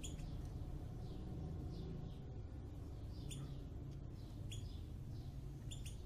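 Java sparrows giving short, high chip calls, one every second or so, over a steady low background hum.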